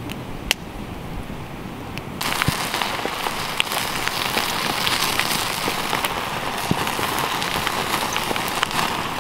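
Wood campfire crackling with a few sharp pops. About two seconds in it gives way to louder raw meat sizzling on a wire grill over open flames: a dense hiss full of small pops and crackles.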